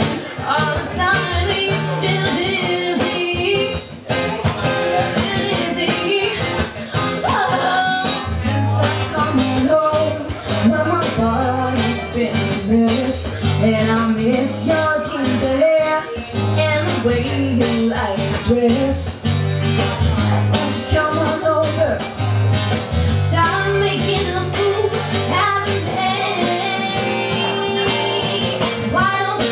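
Live song: a woman singing with a strummed acoustic guitar accompanying her.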